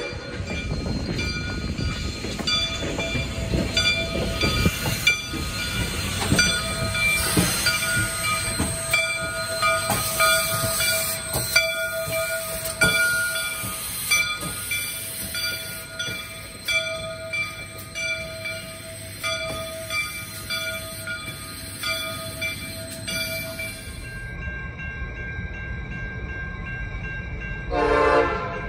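SOO Line 1003, a 2-8-2 steam locomotive running light past at close range: exhaust chuffs and clanking running gear, with steady ringing tones over the din. About 24 seconds in the sound cuts to a diesel locomotive approaching, which gives one short horn blast near the end.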